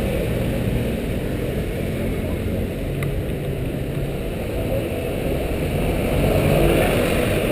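Street traffic: cars and motor scooters driving by, then a city bus passes close, its engine growing louder about six seconds in.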